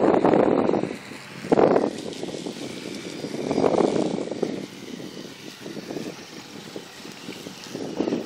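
Radio-controlled model cars driving on a concrete slab, their electric motors and tyres rising and falling in several swells as they speed up and slow down.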